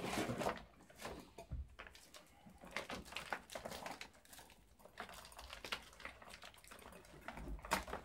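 Fishing tackle being handled: a plastic hand-line spool and gear in a cardboard box, making scattered faint clicks and rustles, with one sharper click near the end.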